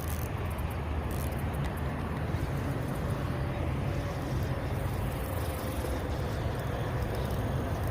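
Steady low rumble with a hiss above it.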